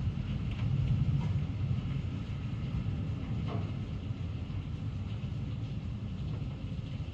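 Low rolling thunder, loudest in the first second or two and slowly fading, over the steady hiss of heavy rain.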